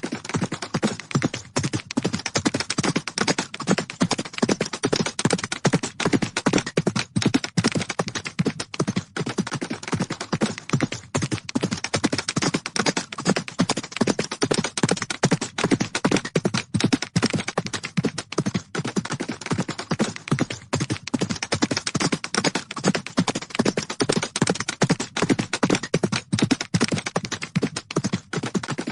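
Horses' hooves galloping: a dense, unbroken run of rapid hoofbeats that holds steady throughout.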